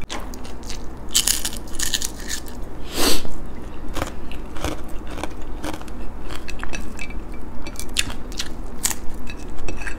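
Close-up chewing of crunchy food: a run of crisp crunches and small clicks, loudest at about one to two seconds and again about three seconds in.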